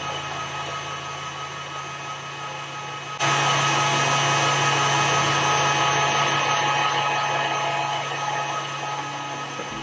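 Electric stand mixer running at high speed, its wire whisk beating eggs and sugar in a steel bowl: a steady motor hum with whirring. It gets abruptly louder about three seconds in, then eases off gradually toward the end.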